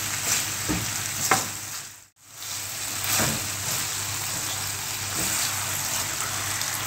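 Chicken pieces sizzling in a pan of bubbling honey and sesame glaze as they brown, with a wooden spoon now and then scraping and turning them. The sizzle cuts out for a moment about two seconds in, then carries on steadily.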